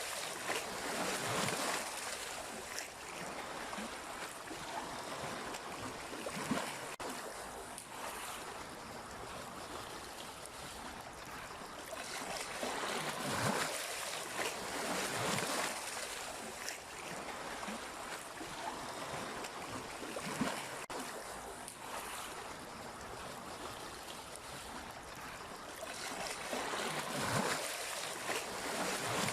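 Sea waves washing on the shore: a continuous wash of surf that swells several times, around the start, about halfway through and near the end.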